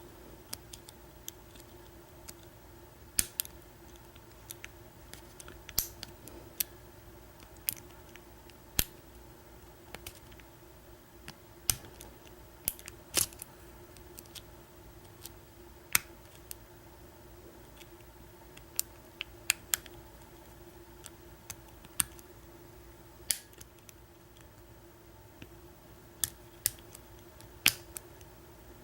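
Irregular sharp metallic clicks of a lock pick and tension wrench working the pin stack of an American 1100 padlock held in a false set, as the picker probes each pin for the counter-rotation that marks a spool pin.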